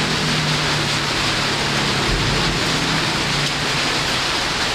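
Steady rain, an even hiss that holds at one level throughout.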